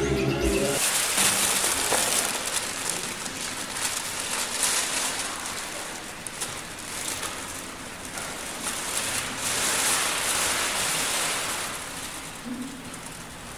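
Large plastic bags rustling and crinkling as a stuffed bundle of them is dragged and carried across a floor, growing fainter near the end.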